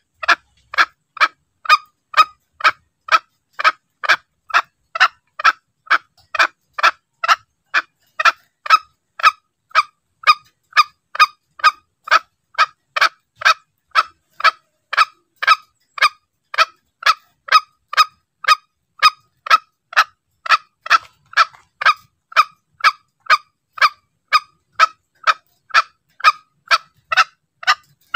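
Green junglefowl calling: short, sharp notes repeated steadily about twice a second, as a lure recording used to draw wild junglefowl in.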